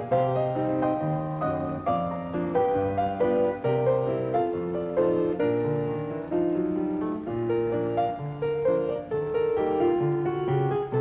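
Instrumental piano music: a melody of quick, changing notes over low bass notes.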